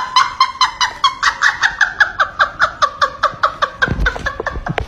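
A person laughing in a rapid, high-pitched cackle of short repeated bursts, about six a second, with a couple of dull thumps near the end.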